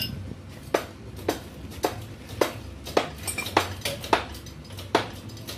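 Sharp metallic clicks, evenly spaced about two a second, from the metal housing of a truck's exhaust-brake actuator being worked by hand, over a low steady hum.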